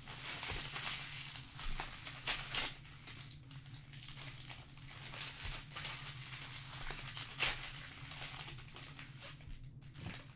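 Plastic trading card pack wrappers crinkling in irregular bursts as they are handled and torn open, over a steady low hum.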